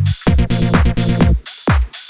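Electronic dance music played back from a project in the LMMS music software. A deep falling thump opens each cycle, followed by a chopped, pulsing bass and chord pattern, and the cycle repeats about every one and a half seconds.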